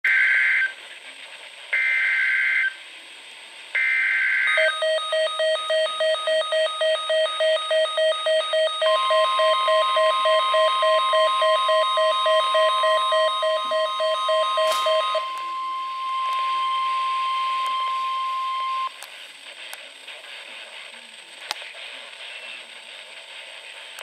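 Emergency Alert System alert on NOAA Weather Radio coming through a weather radio receiver: three short screeching bursts of SAME header data, then a rapid pulsing alarm beep. About nine seconds in, the long steady weather-radio warning tone joins the beeping. The beeping stops about fifteen seconds in and the steady tone about four seconds later, leaving faint hiss with a couple of clicks.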